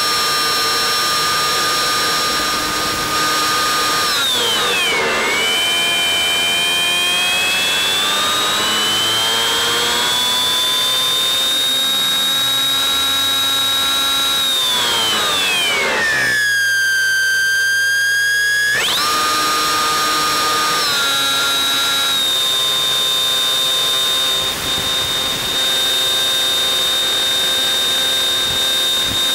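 Electric pusher motor and propeller of a Bixler 3 RC plane whining, heard from the onboard camera. The pitch drops about four seconds in and climbs back slowly. It falls again around fifteen seconds and the sound thins out briefly as the throttle comes back, then jumps back up about nineteen seconds in and holds steady.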